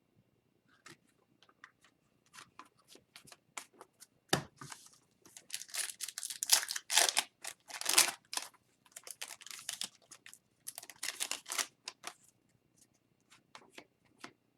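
Hockey trading cards being handled: repeated papery rustling and scraping as cards slide over one another, with a single knock about four seconds in.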